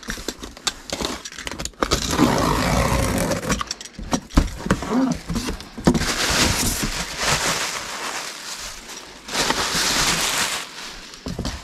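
A cardboard box being opened and unpacked by hand: several long stretches of scraping and rustling cardboard and packaging, with sharp knocks as items are moved.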